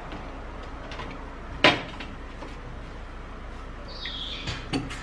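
One sharp click a little over a second and a half in, then a few small clicks near the end, from oil bottles and a measuring spoon being handled.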